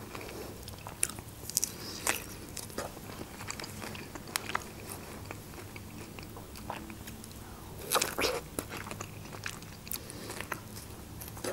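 A person biting and chewing fresh strawberries close to a microphone, with scattered sharp mouth clicks and a louder cluster of bites about eight seconds in.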